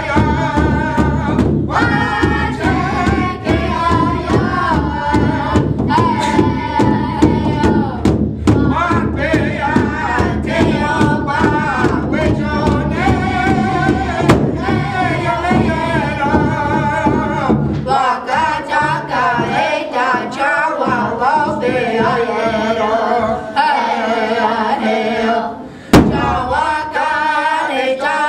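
A drum group beating one large powwow-style drum with drumsticks in a steady pulse while singing together in a chant. The low drum strokes grow lighter about two-thirds of the way through; near the end the sound drops briefly, then one hard stroke is struck and the singing carries on.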